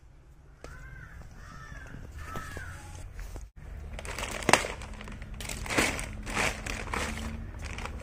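Plastic bag crinkling and rustling as it is handled and opened, filling the second half. Before that, a bird calls three times in quick succession.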